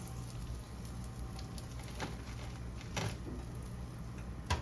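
A few light knocks or taps, about a second apart, over a steady low hum in a kitchen.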